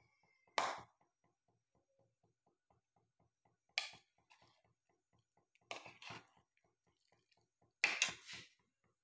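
A metal ladle knocks and scrapes against a steel cooking pot of simmering broth four times, the last the loudest, with a short metallic ring. Under it runs a faint, steady ticking of about five ticks a second.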